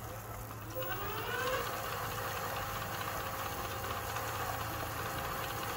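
Electric bike's rear hub motor spinning the raised rear wheel: a whine that rises in pitch over about the first second as the motor speeds up, then holds steady without cutting in and out. The pedal-assist sensor's magnet ring has just been replaced to cure the motor's on-off surging.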